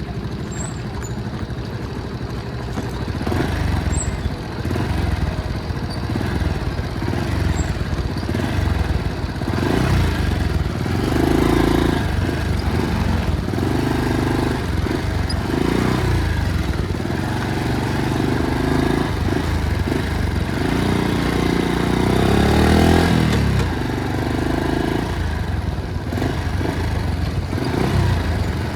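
Motorcycle engine running under way, its revs rising and falling over a steady rumble.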